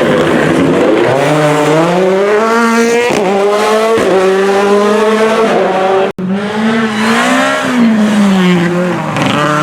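Rally car engine under hard acceleration, its pitch climbing, dropping sharply at a gear change about three seconds in, then climbing again. After an abrupt cut about six seconds in, a rally car's engine rises in pitch and then falls away.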